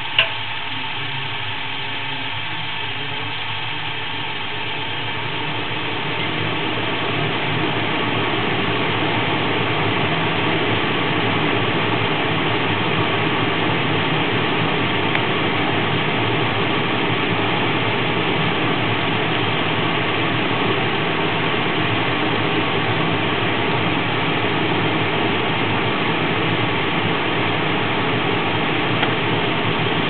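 Lennox G12 gas furnace running with its main burners lit: a steady rushing noise that grows a little louder about six seconds in. A single sharp click comes right at the start.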